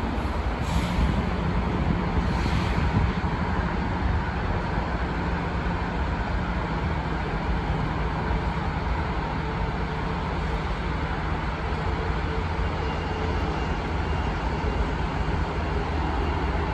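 Diesel engine of a RELCO-built maintenance-of-way locomotive running steadily, a low rumble with a constant hum.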